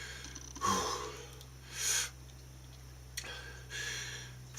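A man breathing hard through the burn of a chilli-extract hot sauce: a sharp breath about a second in, another hissing breath near two seconds, a small click past three seconds, and a longer breath out near the end.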